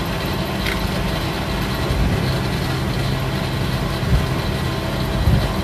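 Fuel dispenser pump running while fuel flows through a hand-held nozzle into a vehicle's tank: a steady low hum. Two brief low bumps come near the end.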